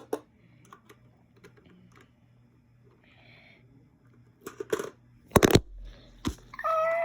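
LEGO pieces and figures clicking and tapping as they are handled, with a single louder thump a little past five seconds in. Near the end a voice starts a long, held, high call, a sound effect for the play.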